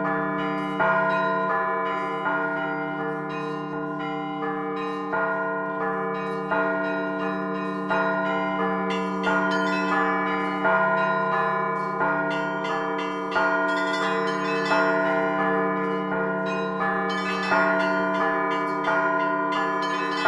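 A set of Russian church bells rung by hand by a bell ringer. Struck strokes fall at an even beat over a sustained, overlapping ringing of several bells.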